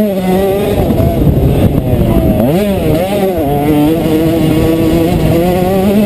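KTM 125 SX two-stroke motocross engine under riding load. It revs up sharply about two and a half seconds in, drops back as it shifts, then holds a steady pitch with small rises near the end.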